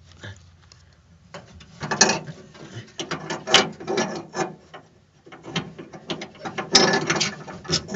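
Rapid metallic clicking and ratcheting in two bursts, about two and five seconds in, from hands and tools working the door handle button and latch mechanism of a 1972 Chevrolet C20 truck door with the inner panel off. The button's retaining clip is broken.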